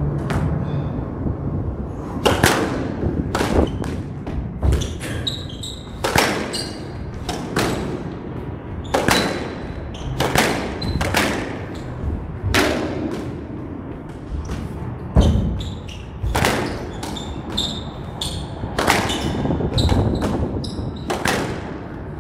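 A squash rally: the ball hit by racquets and striking the court walls in a string of sharp cracks and thuds, about one to two a second, starting about two seconds in.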